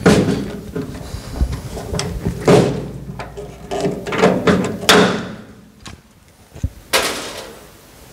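Hand pop-rivet gun setting 1/8-inch blind rivets in aluminium sheet: about four sharp snaps, one every two seconds or so, as each rivet's pin breaks off, with metal handling clatter between.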